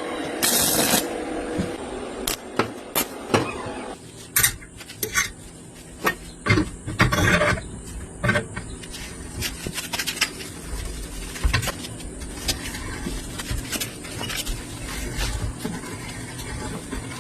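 Metal pieces clinking, knocking and scraping at irregular intervals while metal parts are handled and worked, with a brief louder scraping burst near the start.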